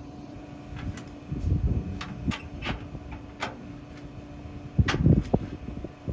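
Combine machinery being readied: a series of sharp metal clicks and knocks over a steady low hum, with heavier clunks about a second and a half in and again near five seconds, as the folding corn head and grain hopper extensions are moved into field position.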